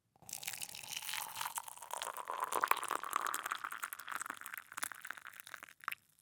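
Water poured in a steady stream into a glass, splashing and gurgling, with a faint tone that rises slightly in pitch as the glass fills. The pour stops shortly before the end, followed by one last drip.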